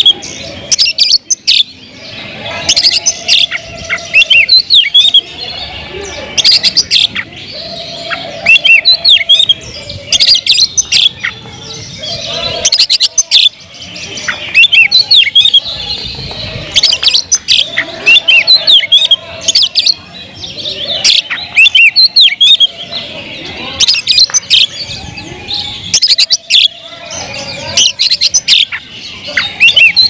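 Oriental magpie-robin singing loudly and continuously, in full, varied song: bursts of rapid whistles and chirps every second or two.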